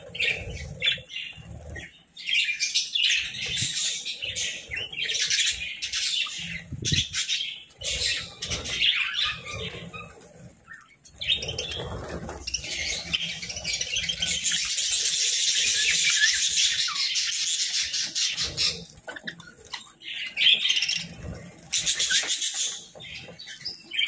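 A flock of budgerigars chattering and chirping, with the flapping of wings as birds fly in and land. The chatter grows into a dense, unbroken stretch in the middle.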